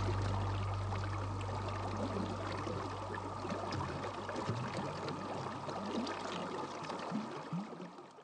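River water rushing and gurgling around a wading angler, with a low steady drone that stops about four seconds in; the water sound fades out near the end.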